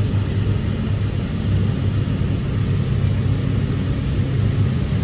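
Steady low hum of running shop machinery, an even drone with no breaks or changes.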